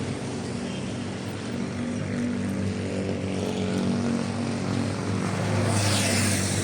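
An engine running steadily, growing somewhat louder near the end, with a rush of hiss about six seconds in.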